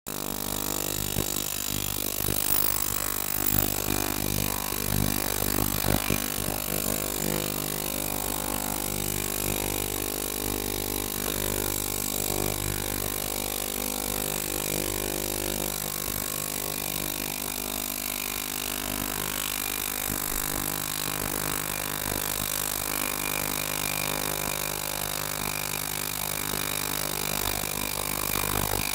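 Ultrasonic cleaning tank running: a steady hum made of several steady tones, with a hiss above it.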